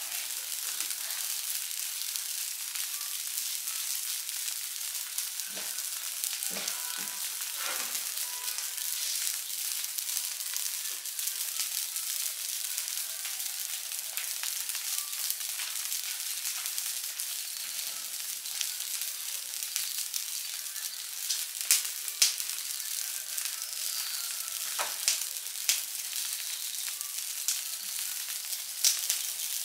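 Burning rubbish pile: a steady crackling hiss with scattered sharp pops, a few louder cracks in the last third.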